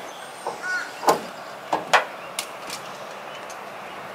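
Ratchet strap being cranked tight: a run of about six sharp, uneven clicks from the ratchet over the first three seconds.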